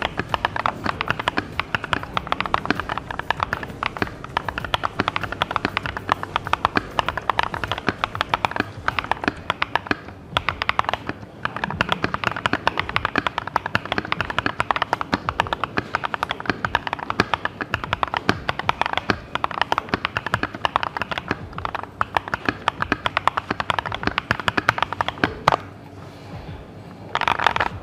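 Fast, continuous typing on a Keychron V1 mechanical keyboard: a dense run of key clacks, broken by two brief pauses.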